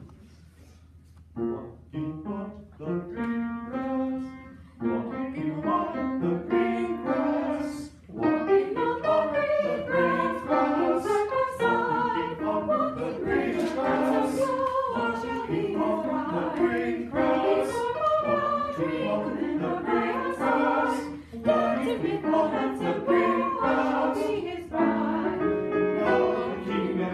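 A small choir singing a vocal piece in parts, with short breaks between phrases. It begins about a second in, on a spoken cue.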